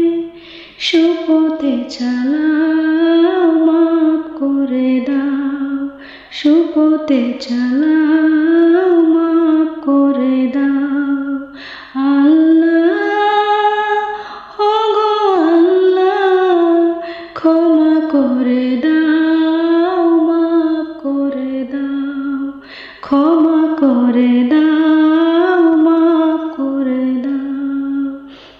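A woman singing a Bengali nasheed (gojol) solo, a slow, gliding melody in phrases of about five or six seconds with short breaks between them.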